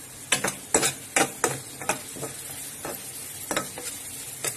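A metal spoon scraping and knocking against a metal karahi in irregular strokes, stirring onions and spices frying in oil, with a steady sizzle underneath as the spice mixture is fried down.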